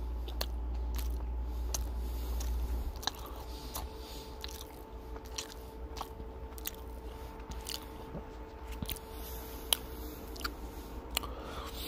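Close-miked chewing of a double cheeseburger: wet mouth clicks and smacks of a person eating, over a faint steady hum. A low rumble underneath stops about three seconds in.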